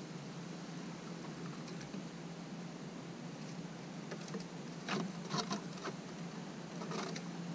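Eastern gray squirrel's claws scratching on wooden fence boards as it climbs down head-first: short scratchy scrapes, a cluster about five seconds in and another near the end.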